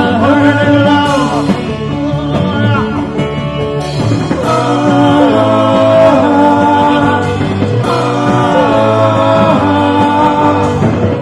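A live rock band playing a cover song, with singing over electric guitar and bass.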